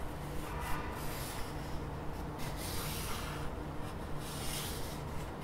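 A pen scratching on paper in repeated strokes as it is drawn around the edge of a small laptop to trace its outline.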